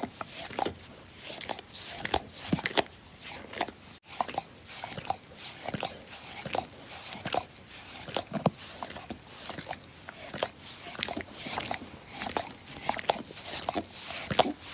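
A dog licking: a continuous run of quick, irregular wet smacks and slurps of its tongue and mouth, several a second.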